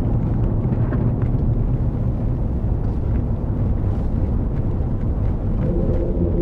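Steady road and engine rumble inside a Chevrolet Suburban cruising on the highway. Near the end a humming drone with several steady tones joins in as the tyres roll onto a steel truss bridge deck.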